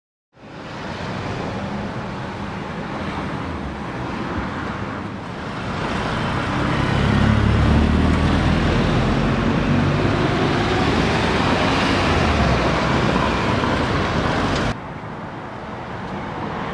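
Street traffic noise: a steady road hum with a vehicle passing close, its low rumble loudest about halfway through. It drops suddenly to a quieter background near the end.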